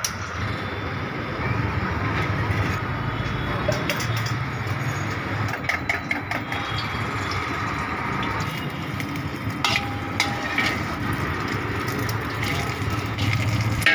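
Gas wok burner running with a steady rushing noise. A few metallic clinks and knocks from the steel ladle and jug break in, one ringing briefly about ten seconds in.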